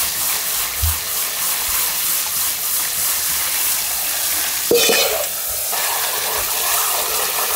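Kitchen tap water running in a steady hiss while freshly boiled thin wheat noodles are rinsed in cold water, with a brief clank about five seconds in.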